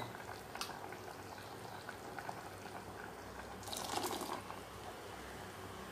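Ground masala paste thinned with water poured from a vessel into a pressure cooker, a brief splash of liquid about four seconds in over a faint steady hiss from the pan.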